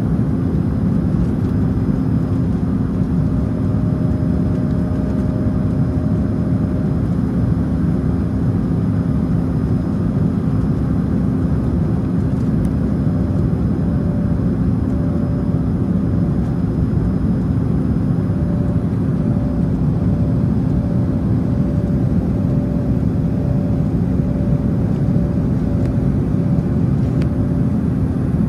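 Cabin noise inside an Embraer E175 airliner in flight: the steady rush of its GE CF34 turbofan engines and the airflow, with a low hum running through it.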